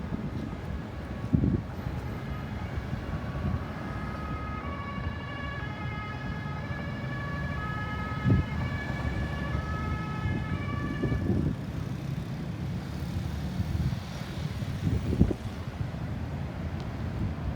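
Ambulance siren sounding in short alternating pitch steps over road traffic rumble, growing stronger and then stopping about eleven seconds in, with the traffic noise carrying on and a few dull thumps.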